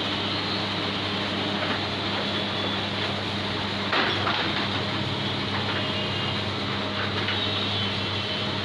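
Lathe running steadily with a low machine hum and a few light clicks, one about four seconds in.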